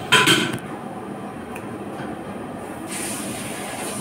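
Steady background noise of a working kitchen, with a brief clatter just after the start.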